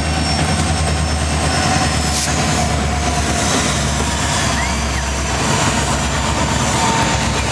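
Union Pacific freight train rolling past: steady noise of the railcars on the track over the constant low drone of the diesel locomotives.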